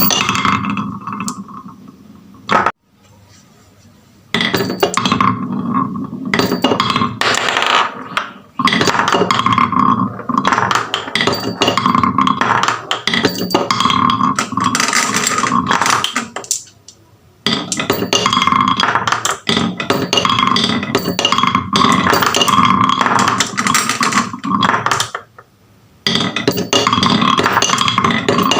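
Marbles rolling and clattering down wooden marble run tracks: a dense, fast run of clicks and knocks, stopping briefly three times.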